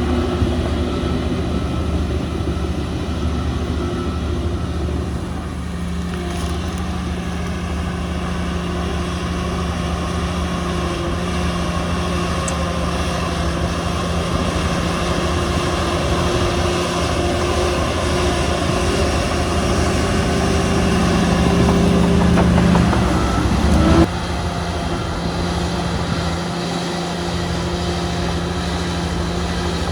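Diesel engines of heavy earthmoving machinery running steadily. The sound grows louder and then drops away suddenly about four-fifths of the way through.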